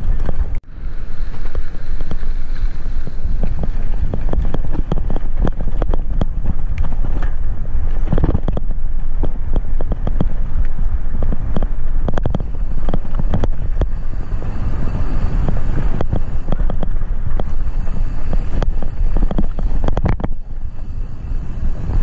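Riding wind buffeting a bike-mounted action camera's microphone, a steady low rumble, mixed with frequent knocks and rattles from the mountain bike rolling over a rough dirt road.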